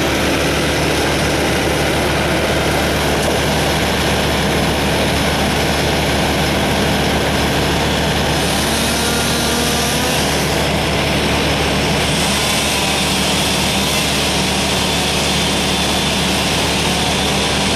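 Log loader's engine running steadily at a constant speed.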